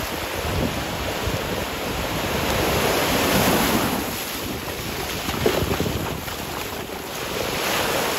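Small surf waves washing up the sand around the wader's legs, swelling about three seconds in and again near the end, with wind buffeting the microphone. A single sharp knock about five and a half seconds in.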